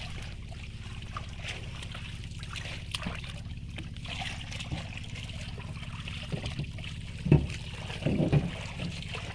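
Water splashing and trickling as hands and a fishing net work in shallow river water, over a steady low hum. There is a sharper, louder splash a little past seven seconds in, and a cluster of smaller ones just after.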